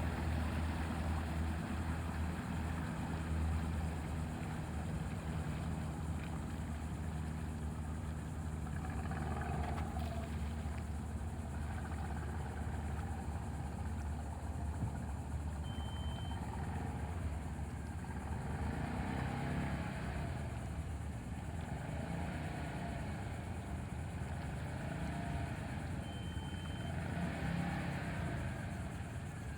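Amphibious boat's engine running steadily at low speed as the boat drives on its wheels from the water onto the beach. Two short high beeps about ten seconds apart.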